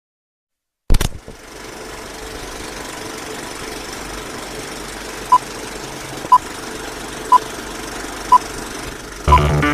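Old-film countdown leader sound effect: a sharp pop about a second in, then a steady film-projector rattle and hiss with a short high beep once a second, four times. A rock song with electric guitar starts just before the end.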